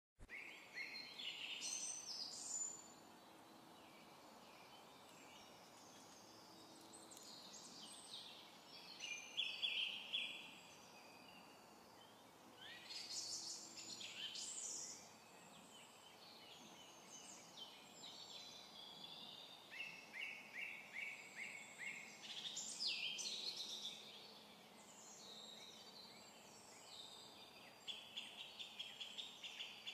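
Songbirds singing, phrase after phrase of clear whistles and quick trills, over a faint steady background noise.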